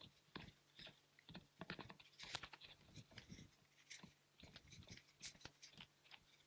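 Faint, quick thuds of sneakers landing on a hard floor from two people doing scissor jumps, about three landings a second, uneven in rhythm.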